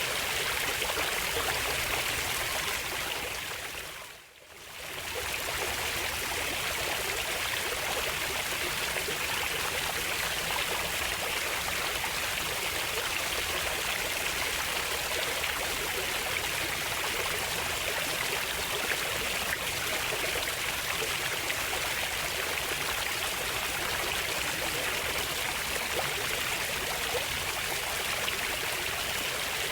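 Water of a stream flowing and splashing steadily. About four seconds in it fades out briefly and fades back in.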